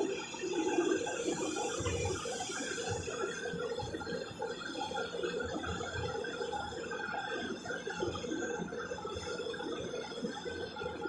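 Large mining excavator working: machinery running steadily with irregular low knocks and mechanical clatter.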